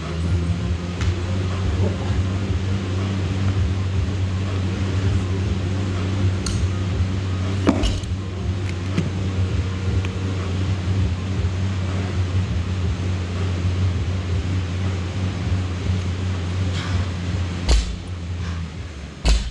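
A steady low mechanical hum that stops shortly before the end, with a few sharp clanks as bumper plates and the barbell are handled.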